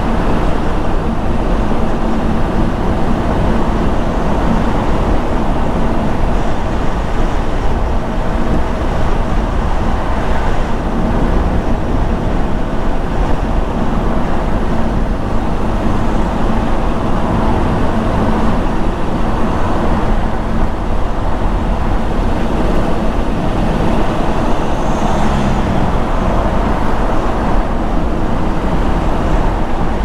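Steady road noise of a car driving: a continuous, even rush of tyres on the road and engine, with a brief extra sound about 25 seconds in.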